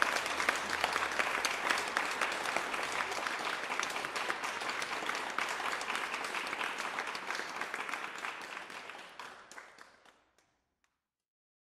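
Applause, many quick claps at once, fading out and stopping about ten seconds in.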